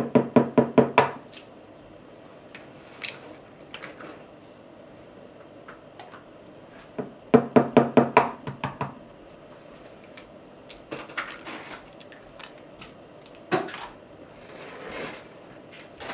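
Rapid knocking against a mixing bowl, which rings a little with each stroke. It comes in two runs of about eight quick strokes each: one right at the start and one about seven seconds in, with a few faint clicks between them.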